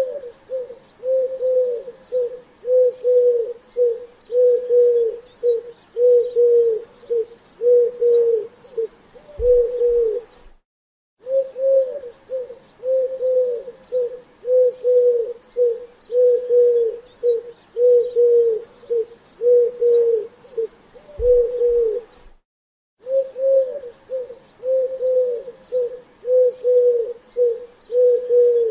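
Pigeon cooing over and over, about three low coos every two seconds, with two brief breaks of silence in the run.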